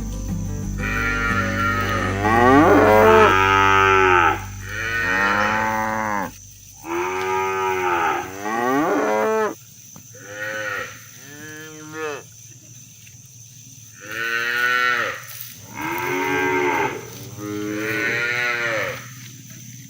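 Cattle mooing over and over, about ten long calls in a row, each rising and then falling in pitch, with short pauses between them. A low steady hum runs under the first few seconds.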